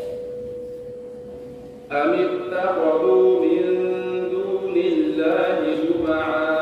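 A young man reciting the Quran in melodic tajweed style through a microphone and PA. The previous phrase fades away in the hall's echo, and about two seconds in a new phrase begins with long, held, ornamented notes. A faint steady tone runs underneath throughout.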